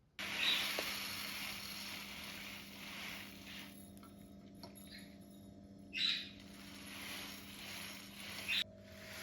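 Outdoor background hiss with a few short bird chirps, the clearest about six seconds in and another just before the end.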